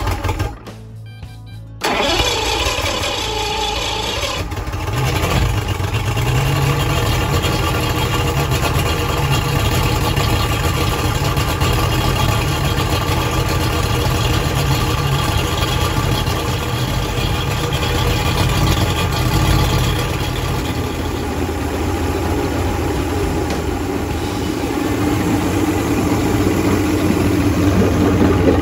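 1990 Mercury Black Max XR4 150 HP two-stroke V6 outboard being started: a short burst at first, then the engine catches about two seconds in and runs steadily. This is its first start on the newly fitted spark plugs after a tune-up.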